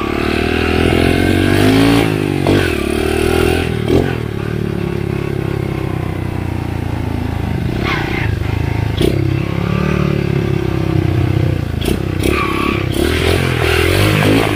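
Dirt bike engine running as it is ridden, its pitch rising and falling as the throttle opens and closes, with several sharp knocks and rattles as the bike goes over rough dirt.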